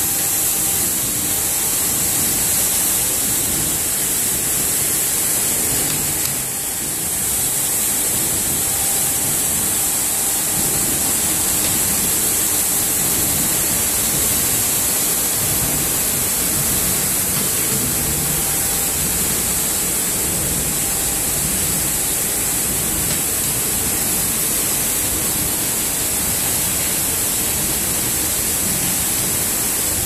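Automatic carpet washing machine running, its rotating brush discs scrubbing a carpet: a steady, loud rushing noise with a strong high hiss, dipping briefly about six seconds in.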